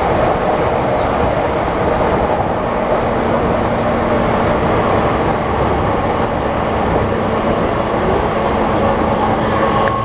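Cabin running noise of a JR East E235 series 1000 subseries electric train travelling at speed: a steady rumble of wheels on rail and car body. A faint steady tone comes in a couple of seconds in.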